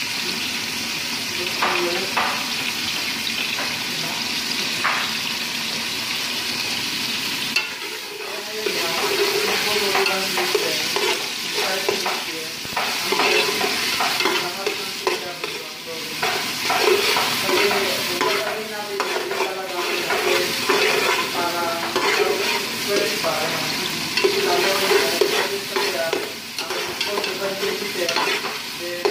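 Chopped garlic sizzling steadily in hot oil in a stainless steel pot as it is sautéed. From about eight seconds in, a spoon stirs and scrapes irregularly against the pot over the sizzle.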